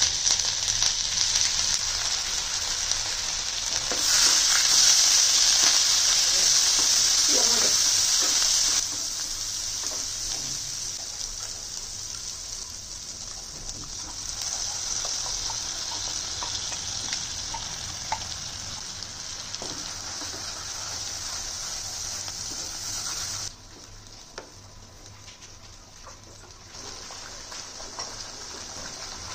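Ground spices and ginger paste sizzling in hot foaming butter in a non-stick kadai, with a few light stirring clicks. The sizzle is loudest for a few seconds starting about four seconds in, then softens once a thick paste is added and cooked down, and drops sharply near the end.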